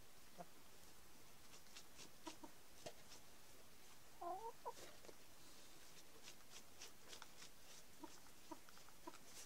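Faint, sparse clucking of domestic chickens, with one short call about four seconds in and a few soft clucks near the end, over scattered light ticks.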